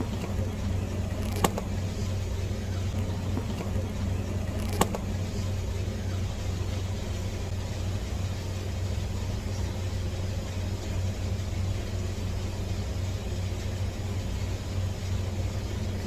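Steady low mechanical hum, like a motor running, with two sharp clicks, one about a second and a half in and another about five seconds in.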